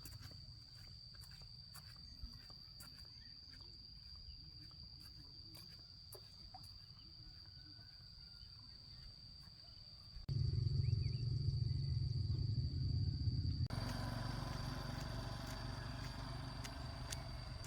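Insects giving a steady high-pitched trill. A loud low rumble sets in suddenly about ten seconds in.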